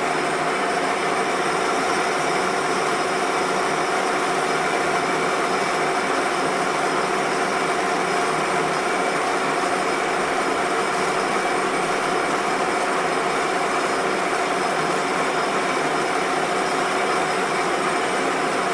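Metal-turning lathe running steadily under power, its headstock gearing giving a constant whine of several fixed tones over a broad machine hum.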